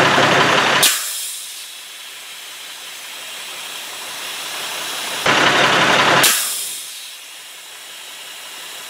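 Truck air brake system's air dryer purging: two loud blasts of escaping air, each about a second long, the first ending about a second in and the second about five seconds in, each trailing off into a fainter hiss. The dryer is purging far too often, about every 30 seconds, a sign of a fault in the compressor's unloader circuit.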